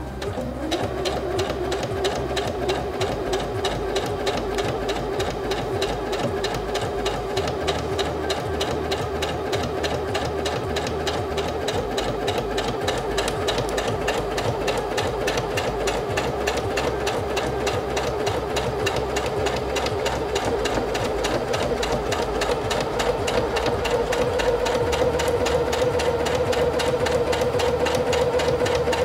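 Singer Featherweight C240 sewing machine stitching steadily through a thick, many-layered denim jeans hem, its integrated even feed engaged, with a fast, even needle rhythm over a motor hum. The hum rises slightly in pitch and gets a little louder late on as the sewing speeds up.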